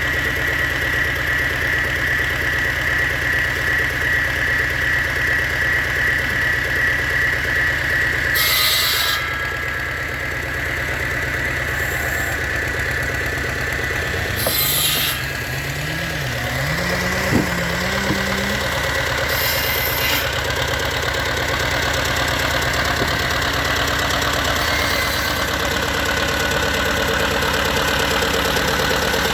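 Ashwamegh Lister-type 20 HP twin-cylinder diesel generator running steadily, with an even low beat.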